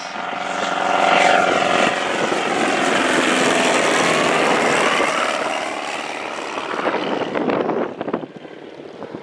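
Small propeller airplane, a light bush plane, flying low past with a steady engine drone that swells in the first second, holds, and fades away near the end.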